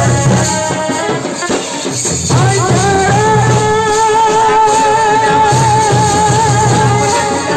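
Live Jhumar folk music: strapped-on barrel drums beat a steady rhythm with jingling percussion over it. The drums break off briefly about two seconds in, then come back under a long held, wavering melody note.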